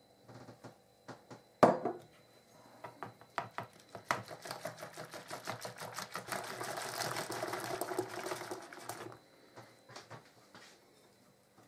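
Balloon whisk beating pancake batter in a mixing bowl: a fast run of ticking and clattering as the wires strike the bowl, starting about two seconds in, growing louder, and stopping about nine seconds in. A single sharp knock comes shortly before the whisking starts.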